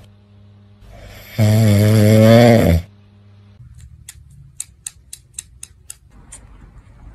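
A dog sleeping on its back snoring, one loud, long, rasping snore about a second and a half in. Then a run of quick soft clicks from a cat licking its paw.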